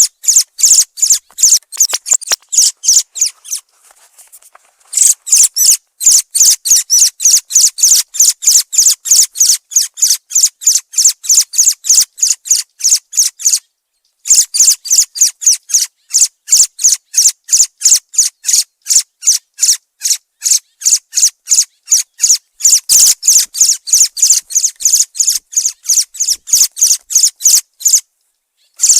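Thrush calls: a rapid, steady string of short high-pitched notes, about three or four a second, broken off by brief silences about four seconds in, halfway through and near the end.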